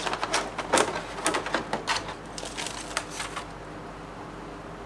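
Foam packaging trays and hard plastic pieces being handled: a quick run of soft knocks, scrapes and rustles that dies away about three and a half seconds in.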